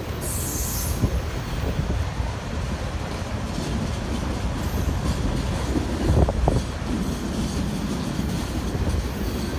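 Freight cars of a manifest train rolling past: a steady low rumble and clatter of steel wheels on the rails, with a brief louder burst and a short squeal about six seconds in.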